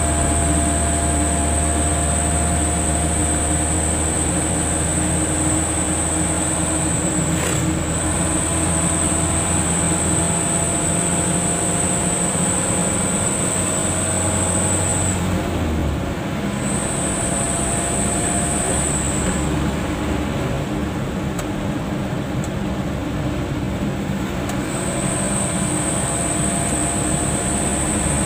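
Steady engine and road rumble inside a moving car's cabin, with faint whining tones over it. About halfway through the deepest part of the rumble drops away, and a thin high whine cuts out and returns a few times.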